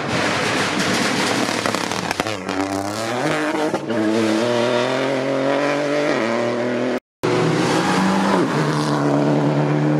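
Rally cars driven hard on a tarmac stage: a rush of engine and road noise, then the engine note drops sharply and climbs again in steps through the gears. A brief break in the sound at about seven seconds, after which a car's engine holds high revs.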